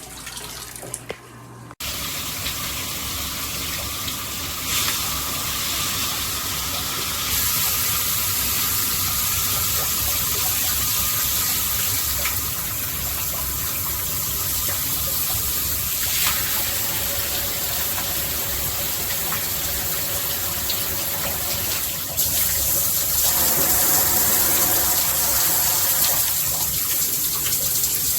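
GRICH rainfall and handheld combo shower head spraying water steadily. The spray comes on abruptly about two seconds in, and its sound shifts a few times as the spray settings are changed.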